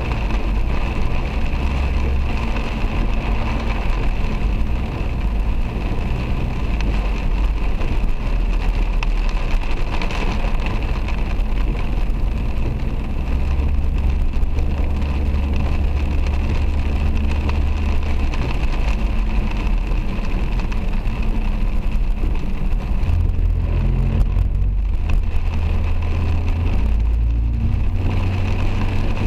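A car driving through heavy rain, heard from inside the cabin: a steady low rumble of engine and tyres on the wet road, with rain hissing over the car.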